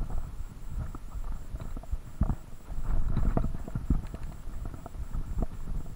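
Mountain bike riding down a rough dirt singletrack covered in dry leaves: a steady low rumble of tyres on the trail, with irregular knocks and rattles from the bike over bumps.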